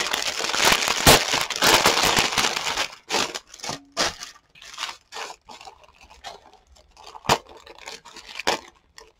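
Clear plastic bag of buttons crinkling as it is handled and opened, loud and continuous for the first few seconds. It then settles into scattered crackles with a few sharp clicks.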